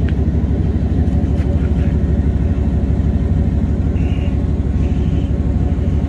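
Old GM full-size pickup's engine idling steadily, heard up close at the tailpipe as a loud, even exhaust rumble while smoke pours out.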